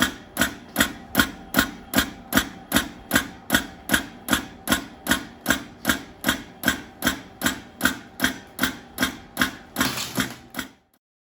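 Vibemac pneumatic belt-loop cutter chopping tape, its blade striking in an even rhythm of about two and a half cuts a second. A short rush of noise comes just before it stops abruptly near the end.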